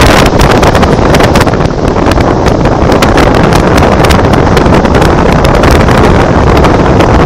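Very loud wind blowing across the microphone: a constant buffeting noise with frequent crackles.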